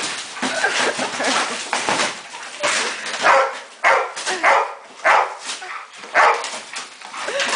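Labrador retrievers playing rough on a cardboard box: scratchy cardboard rustling for the first couple of seconds, then a run of about five short, loud barks.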